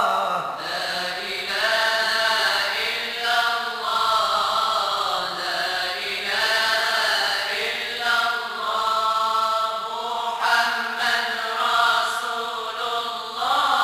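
Moroccan devotional chant (madih nabawi, praise of the Prophet) sung by a vocal group. Melodic phrases of a few seconds each rise and fall over a steady low held note.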